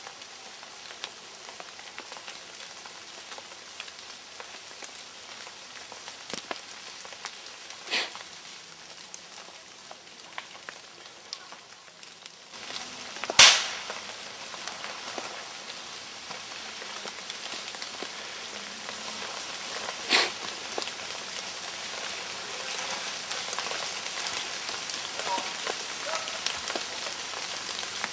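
Three sharp gunshot bangs several seconds apart, the one in the middle much the loudest with a short echoing tail, over a steady light hiss.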